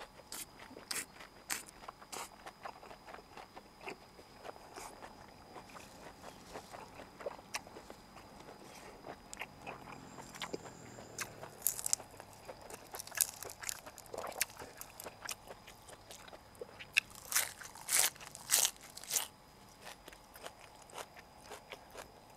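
Close-miked eating: crunching and chewing of fresh raw greens and chewy boiled offal, with wet mouth clicks. A run of louder crunches comes about three-quarters through.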